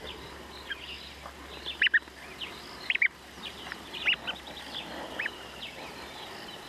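A newly hatched southern ground hornbill chick peeping: short, high squeaks, several in pairs, about once a second.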